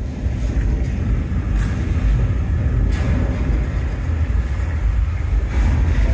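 Loud, deep, steady rumbling of a staged earthquake special effect in a subway-station set, with a couple of sharper crashes mixed in.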